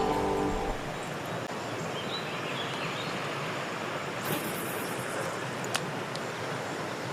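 Music cuts off less than a second in, leaving the steady rush of flowing creek water, with a short rustle about four seconds in.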